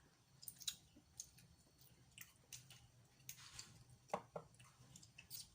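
Faint eating sounds from a boiled seafood meal: scattered soft clicks and wet squishes of shellfish being handled and chewed.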